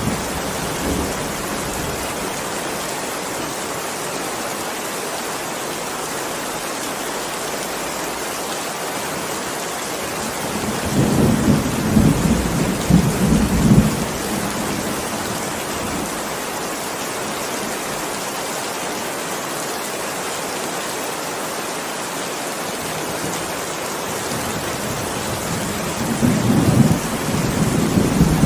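Heavy rain falling steadily, with thunder rumbling twice: a roll lasting about three seconds around the middle and another starting near the end.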